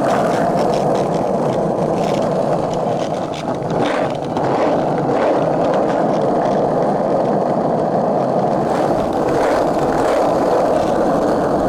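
Hard 53 mm, 101A urethane skateboard wheels rolling over rough, pebble-strewn asphalt: a steady coarse rumble with occasional clicks from grit under the wheels.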